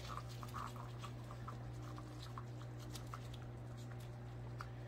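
Jindo dogs licking and chewing cracked raw eggs off the pavement: faint soft wet clicks, scattered and irregular, over a steady low hum.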